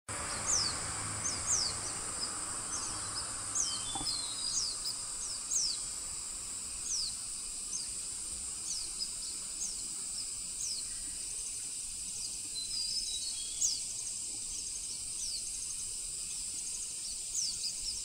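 Hume's white-eye calling: a loose series of short, thin, high "tsee" notes that slide sharply downward, irregularly spaced, with a few shorter flat notes among them, over a steady high-pitched hiss.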